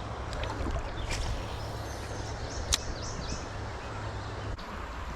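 Creek water running steadily under a low rumble, with one sharp click about halfway through.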